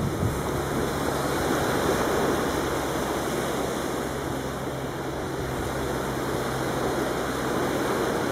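Steady rush of sea waves and wind, with a low steady hum underneath.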